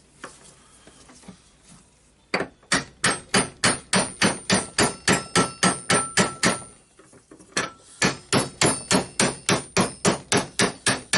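Rapid hammer blows on metal, about four a second, in two runs with a short pause between them; each blow rings. This is hammering to knock a stuck ball bearing out of a Berner BROS 150 orbital sander.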